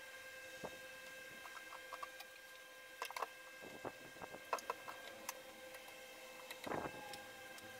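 Small clicks, taps and scrapes of hand tools being handled against a plywood cabinet: a pencil marking against a ruler, then a blue metal jig set against the panel. The clicks come in scattered clusters, and a slightly longer scrape-knock comes near the end, over a faint steady hum.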